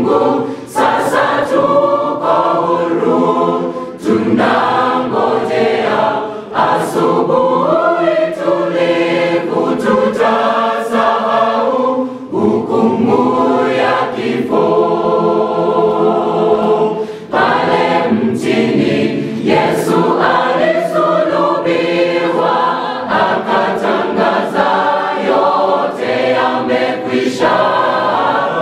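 Mixed choir of women and men singing a Swahili hymn together, phrase after phrase with brief breaths between them.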